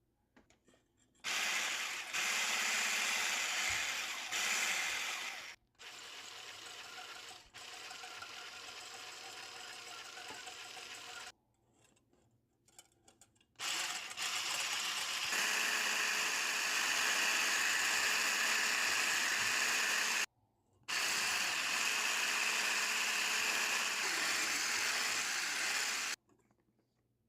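Electric hand mixer running in long runs, stopping and starting several times, with a quieter stretch in the first half.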